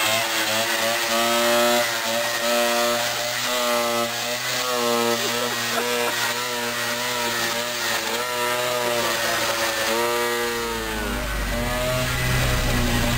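Piaggio Ape three-wheeler's small engine running with a buzzy note, revving up and down. Near the end a deeper steady rumble joins it from the car following behind.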